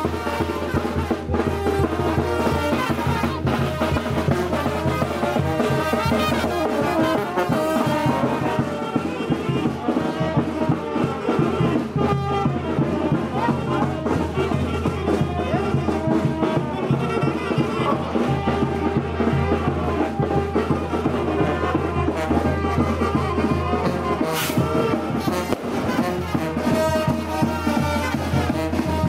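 Brass band music with trumpets and trombones, playing without a break.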